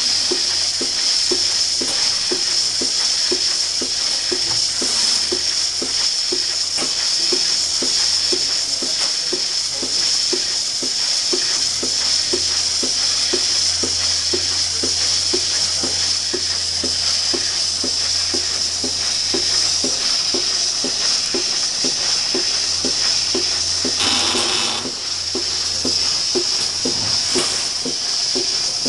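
Lely Astronaut 4 robotic milking machine milking a cow: a steady hiss of vacuum air over a low hum, with the teat-cup pulsation beating evenly about twice a second. About 24 seconds in there is a short, louder rush of air.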